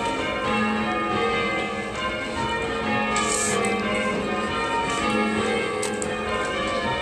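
Church tower bells being rung in changes: a continuous stream of overlapping bell strokes, each ringing on.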